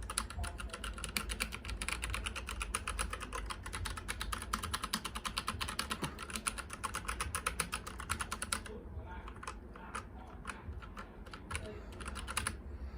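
Mechanical keyboard with brown switches being typed on fast, a dense run of key clicks; about nine seconds in the typing thins out to scattered single keystrokes, which stop near the end.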